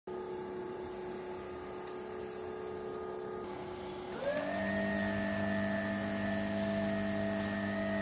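Brushless DC motor driven by a 30 A ESC, running with a steady whine. About four seconds in, a push button steps it up to a higher speed: the whine quickly rises in pitch, gets a little louder, and holds steady at the higher note.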